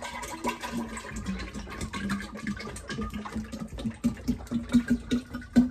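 Fabric softener glugging out of an upturned plastic bottle into a glass dispenser jar, in a quick run of gulps that come faster and louder toward the end.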